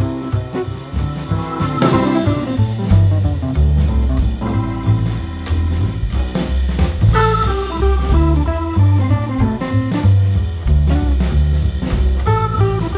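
Background music with guitar, bass and a drum kit keeping a steady beat, in a jazzy, bluesy style.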